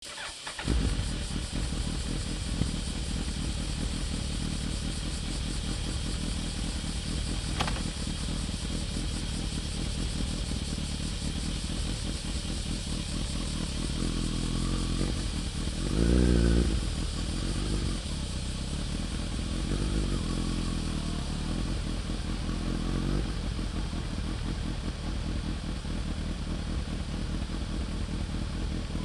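Suzuki GSX1300R Hayabusa's inline-four engine running steadily through a Techserf carbon aftermarket muffler, briefly louder about sixteen seconds in. The drive chain clatters loudly under the exhaust note.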